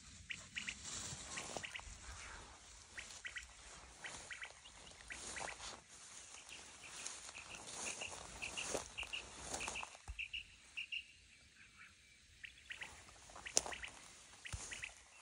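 Small birds chirping in short repeated notes, with faint rustling of tall grass and weeds being walked through. A single sharp click about thirteen and a half seconds in.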